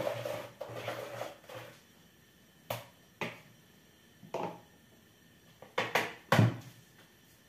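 Wire whisk beating pancake batter in a plastic bowl for about two seconds. Then come a handful of separate knocks and taps, the loudest about six seconds in.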